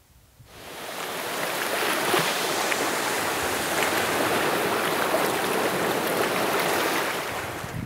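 Sea waves washing in over shoreline rocks: a steady rush of surf with small splashes, fading in about half a second in.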